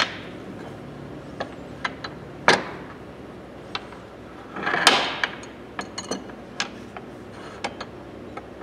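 Steel Matco oil filter pliers and their small parts being handled and fitted together on a countertop: sharp metal clicks and knocks, one at the start and a louder one about two and a half seconds in, a longer clatter just before five seconds, and scattered small ticks afterwards.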